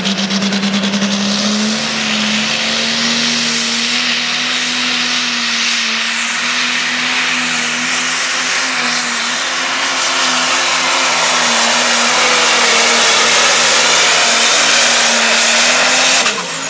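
Prostock pulling tractor's diesel engine running flat out under full load, dragging the weight-transfer sled: a steady, high engine note with a loud hiss over it, growing louder toward the end. Near the end the revs fall away quickly.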